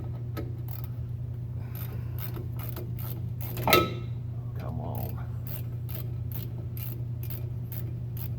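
Stanley hand socket ratchet clicking in a steady run of short clicks, with one louder metal clank just before the middle, over a steady low hum.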